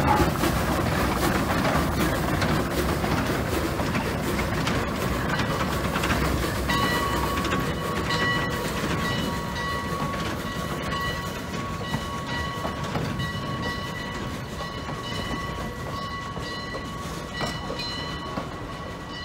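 Cass Scenic Railroad Shay No. 6, a geared steam locomotive, moves slowly past and pulls away with its cars, its rumble and clanking growing fainter. About seven seconds in, a steady high ringing tone joins and keeps pulsing on and off.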